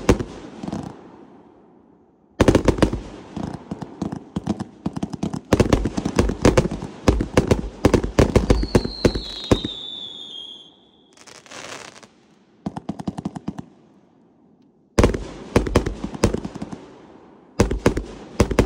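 Proline 'Tartarian Empire' 241-shot compound fireworks cake firing in volleys: clusters of rapid reports and crackling bursts, with short pauses between them. About nine seconds in, a falling whistle runs under the bangs, followed by a brief hiss.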